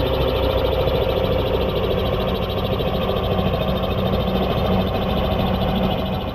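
Radio-controlled scale model Bell 212 helicopter hovering, its rotor sound slowed to 30% playback speed so that it becomes a rapid, even chopping blade-slap like a full-size helicopter's rotor.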